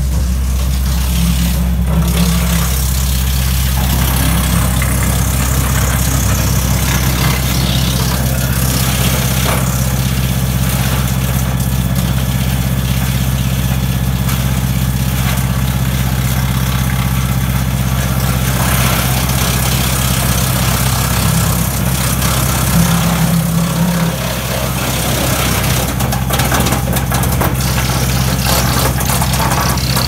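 Deutz Agroplus 70 tractor engine running steadily, driving a PTO-powered Victory 6-inch woodchipper, with a constant low drone.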